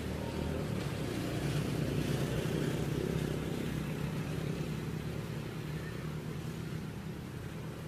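Low engine drone, swelling about two seconds in and slowly fading.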